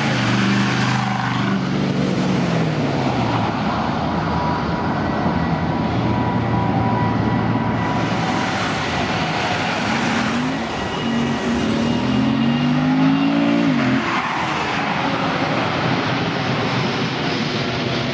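Car engines revving hard and accelerating away, the exhaust note climbing and dropping in pitch with gear changes, over a steady background of traffic noise. The strongest rev climbs about two thirds of the way through and breaks off sharply at a shift.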